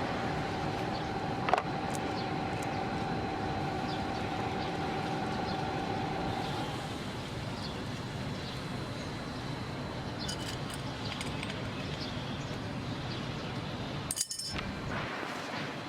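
Pile driver's engine and hydraulics running steadily, with a whine that stops about six and a half seconds in. A sharp click comes about a second and a half in, light metallic clinks later on, and a brief break in the sound near the end.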